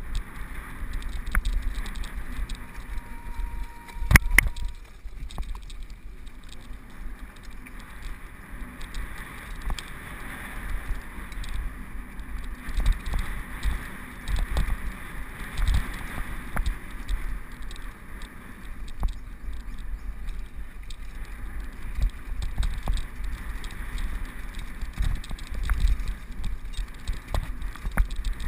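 Mountain bike descending a rocky, dusty dirt trail: tyres crunching over loose stones and the bike rattling and knocking over bumps, over a steady low rumble. One hard knock about four seconds in.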